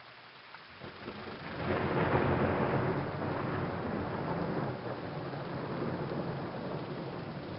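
Thunder rumbling over steady rain: the rumble builds about a second in, is loudest about two seconds in, then rolls on, slowly easing off.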